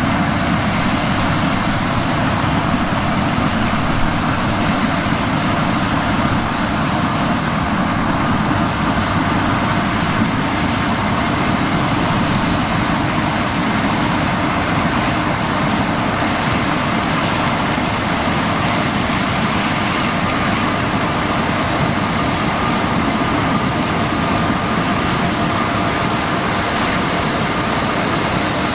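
John Deere X9 1100 combine with a 16-row C16F corn head harvesting corn: a loud, steady, unchanging machine noise with a few faint steady tones in it.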